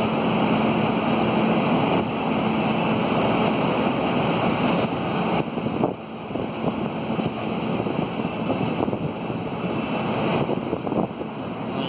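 Steady rushing wind noise on the microphone over the rumble of a departing express train, with a brief dip about six seconds in.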